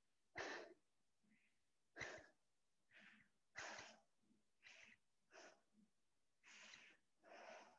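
Faint breathing of a person catching their breath after exercise: short breaths, about one a second, over near silence.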